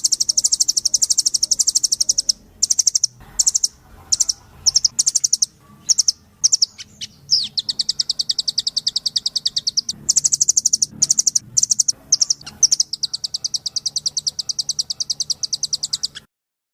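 Velvet-fronted nuthatch (rambatan doraemon, the red-billed nuthatch) singing a loud, rapid trill of fast repeated high notes in long runs broken by short pauses; it stops abruptly near the end.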